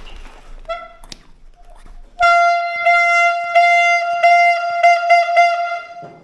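A brassy horn tone on one pitch: a short blast about a second in, then one long held blast from about two seconds in that swells several times and cuts off near the end.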